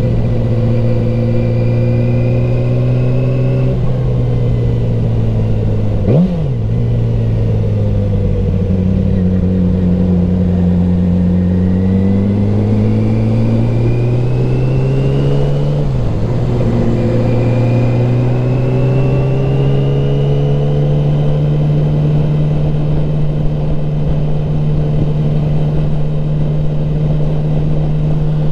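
2007 Yamaha R6's 600 cc inline-four engine running at highway speed. Its pitch climbs and falls as the revs change, breaking off briefly three times, near 4, 6 and 16 seconds, before the revs pick up again.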